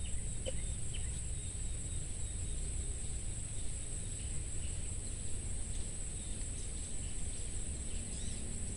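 Steady high-pitched buzzing of insects in rural outdoor ambience, with a low rumble underneath and a few short chirps.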